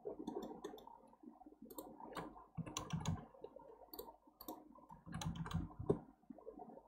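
Scattered clicks of a computer mouse and keyboard, some in quick clusters, with low thuds about three seconds in and again near the end.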